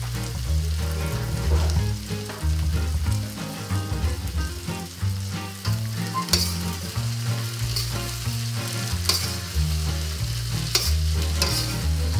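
Yard-long beans sizzling in a hot carbon-steel wok as they are stir-fried. A metal spatula tosses them and scrapes against the wok, with sharp scrapes several times in the second half.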